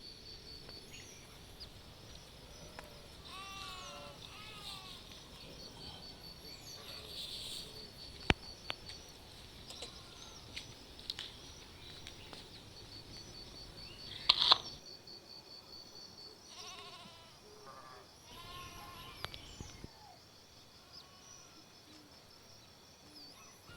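Several cats meowing again and again, short pleading calls that rise and fall in pitch: hungry stray cats begging for food. An insect trills steadily in the background, and there are two sharp knocks, one about eight seconds in and a louder one about fourteen seconds in.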